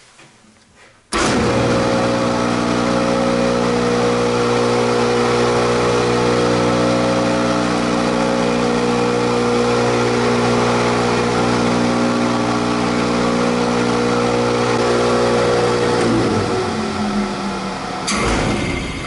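Belt-driven HVAC blower and its motor started for a test run after the loose pulley was tightened: a loud, steady hum made of a stack of even tones, switching on suddenly about a second in. About sixteen seconds in it winds down, falling in pitch, and another loud noise starts near the end.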